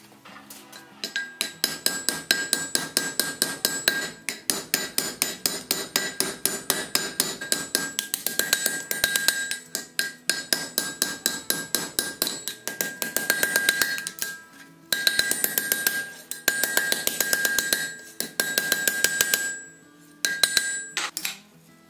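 Blacksmith's hammer striking a red-hot iron bar on an anvil in quick, steady blows, about five a second, each blow ringing. The hammering stops briefly a few times in the second half and ends shortly before the close.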